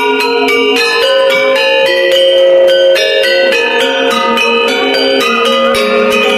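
Balinese gender wayang ensemble: bronze-keyed metallophones struck in a quick, dense run of notes, each note ringing on under the next.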